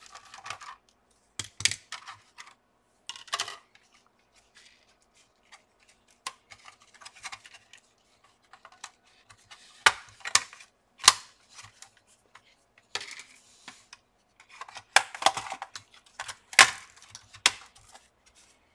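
Scattered sharp plastic clicks and snaps as the palmrest top cover of an HP Pavilion dv6000 laptop is unclipped from the chassis, after a screwdriver works out a last screw. The loudest snaps come in clusters past the middle and near the end, as the cover comes free.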